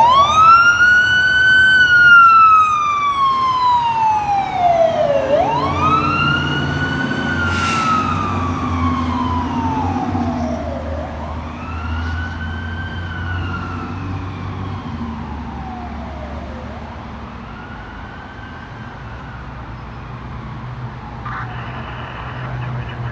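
Fire engine siren sounding a wail, climbing quickly and sliding slowly down about every five to six seconds, over the fire truck's engine rumble. It fades steadily as the truck drives away.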